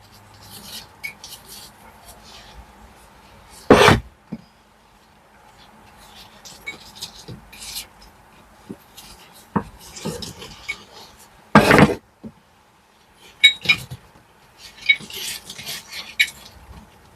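Metal hand tools clinking and scraping against brick and mortar, in scattered small knocks and scrapes, with two longer, louder scrapes, one about four seconds in and one about twelve seconds in.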